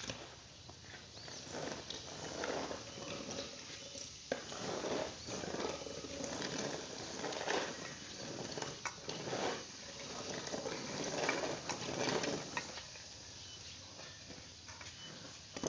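Unhusked rice grain spread out to dry, rustling in a run of rough swishes as a farmer works through it on foot. The swishing dies down about four-fifths of the way in.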